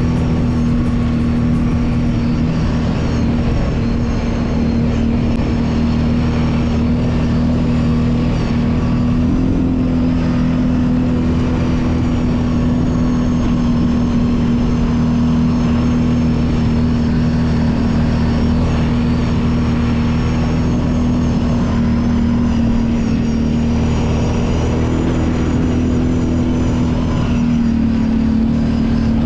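Kawasaki Brute Force 750 ATV's V-twin engine running at a steady speed, a constant drone whose pitch shifts slightly about ten seconds in and again near the end.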